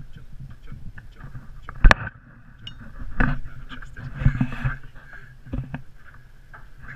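Knocks and footsteps on a wooden plank floor, with one sharp loud click about two seconds in and further thuds a little later, over a steady low background hum.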